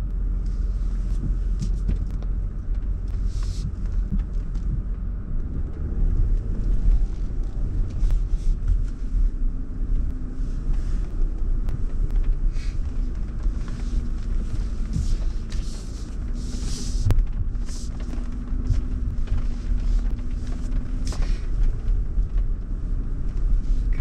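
Land Rover driving over a rough, muddy off-road track, heard from inside the cabin: a continuous low rumble of engine and tyres, with a steady engine hum from about nine seconds in. Short hisses and the odd knock come now and then.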